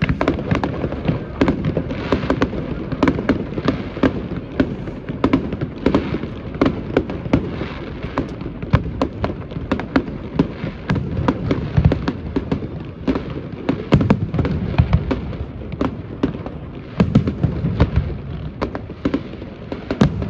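Fireworks going off in quick succession: a dense run of sharp bangs and crackling pops over deep booms, many each second throughout.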